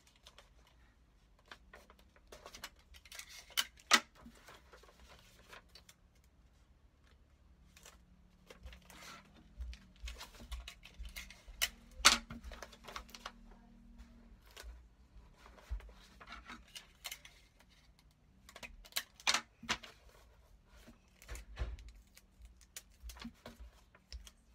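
Clear sticky tape pulled off a desk dispenser and torn off in pieces, with paper rustling and handling as the tape is pressed onto a paper book jacket's spine. Scattered clicks and snaps, the sharpest about four, twelve and nineteen seconds in.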